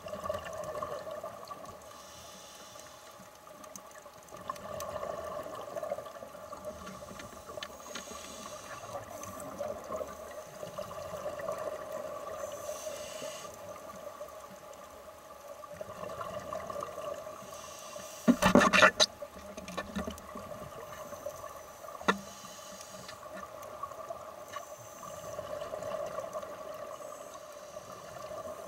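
Muffled underwater sound picked up by a submerged camera: a steady hum with soft water hiss that swells every few seconds. About two-thirds of the way through there is a short cluster of loud knocks, and a single sharp knock a few seconds later.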